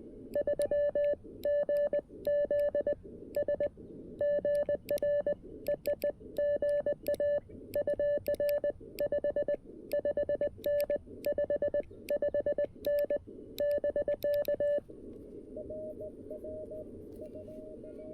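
Morse code sidetone from a CFT-1 CW transceiver: a loud, clean keyed tone sending dots and dashes over receiver hiss. About three seconds before the end the sending stops and a fainter, slightly higher-pitched Morse signal from another station is heard in the band noise.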